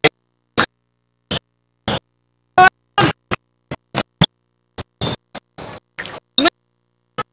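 Basketball game sound in a gym, heard only in brief chopped fragments: more than a dozen short bursts of noise with dead silence between them, the audio track dropping in and out.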